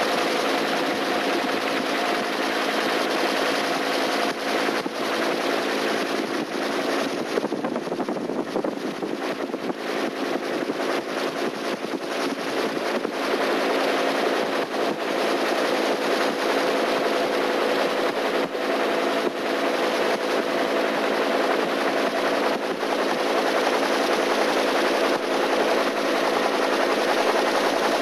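A loud engine running steadily, with a few constant tones over a dense rattle.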